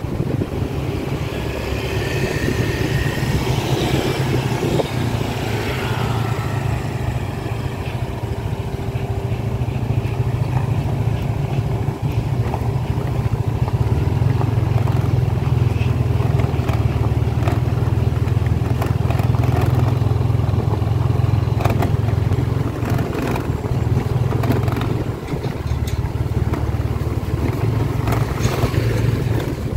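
Motorcycle engine running steadily while riding, heard from the bike itself, with a heavy low rumble. Scattered clicks and rattles come in over the gravel track in the second half.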